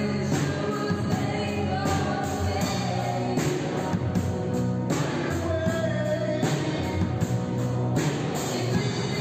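A live rock band playing a song with a steady beat: a drum kit, electric guitars and keyboards.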